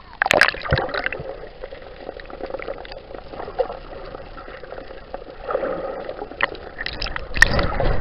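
Sea water heard from underwater: muffled sloshing and gurgling, with sharp splashes just after the start and a louder splash around the end as the microphone goes under and comes back up.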